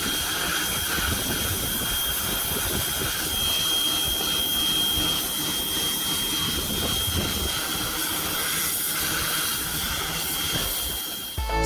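Pressure washer running and spraying: a steady hiss of spray with a thin high whine over it. Music cuts in at the very end.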